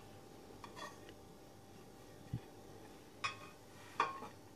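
A few quiet knocks and clinks as a plate of ladyfinger biscuits is set down on a towel-covered counter beside a glass baking dish: a low knock a little past two seconds in, then a couple of sharper clicks near the end.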